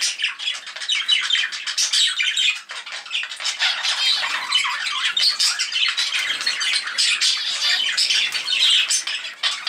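Budgerigars chattering and squawking, many quick high calls overlapping with no pause.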